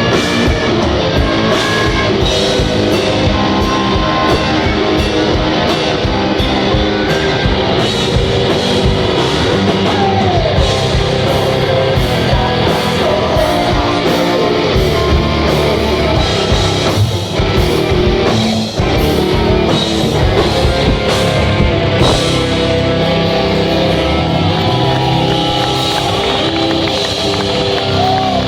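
A rock band playing live: distorted electric guitar, bass and drum kit, with some singing.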